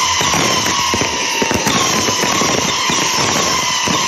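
Professional aerial fireworks firing from a truck bed: a dense, continuous crackling and popping, with whistles that fall slightly in pitch recurring about every second.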